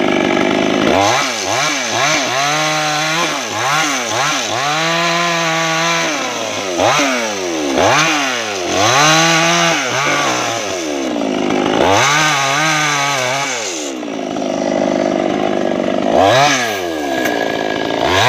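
Maestro Plus CS6500L two-stroke chainsaw throttled up and dropping back, over and over, each rise and fall lasting a second or two, as it cuts into a felled teak tree.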